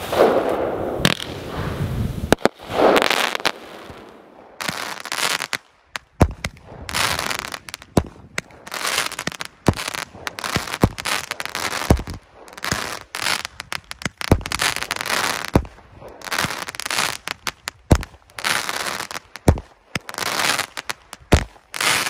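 Aerial fireworks going off: many sharp bangs in quick, uneven succession, with stretches of crackling between them.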